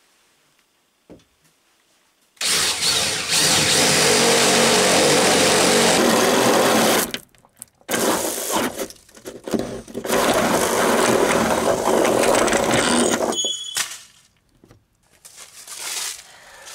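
Power drill boring a hole with a large 15/16-inch twist bit, in two long runs with a short pause and a few brief bursts between them.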